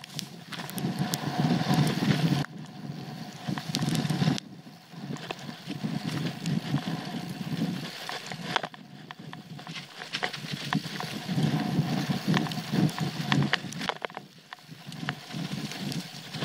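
Trek Full Stache 8 mountain bike riding down a dirt trail: tyres rumbling over the ground, with frequent sharp clicks and knocks from the bike and trail surface. The rumble swells and drops several times as the ride goes on.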